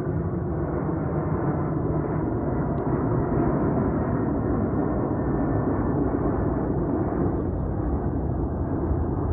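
Jet airliner engines heard as a loud, steady rumble.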